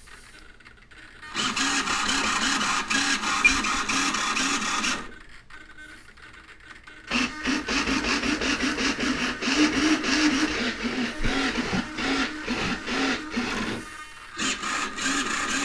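Radio-control hobby servos whirring in bursts as they drive the model's control surfaces back and forth, the pitch of the small motors rising and falling with each movement. There are three spells of it, with a pause of about two seconds after the first.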